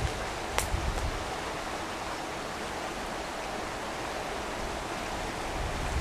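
Steady rushing of a small creek's flowing water, with a single click about half a second in.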